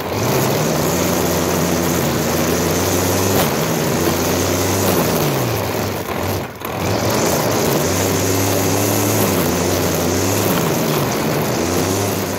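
Stihl FS90 string trimmer's small 4-MIX engine running at high throttle while its nylon line whips through grass. The throttle is eased off about five seconds in and again near the end, the pitch sliding down, then opened back up. The engine, which a dealer had condemned as worn out, pulls steadily under the cutting load after a simple fix.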